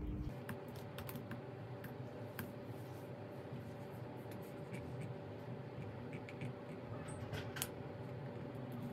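Typing on a laptop keyboard: soft, irregularly spaced key clicks.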